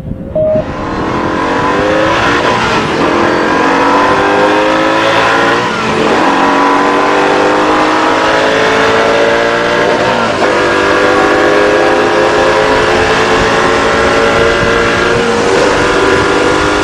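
V8 supercar engine at full throttle, its pitch climbing steadily through each gear and dropping at upshifts about 3, 6, 10 and 15 seconds in. A short beep sounds right at the start.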